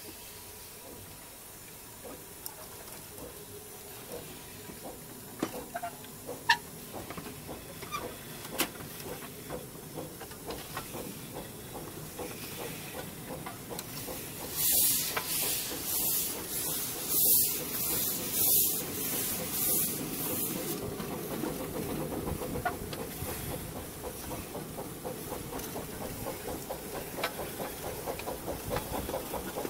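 Miniature steam locomotive, heard from its cab, pulling away and gathering speed. A faint steam hiss with a few clicks gives way about halfway through to a run of loud hisses of steam, about three every two seconds, followed by a quick, steady beat of running gear that grows louder toward the end.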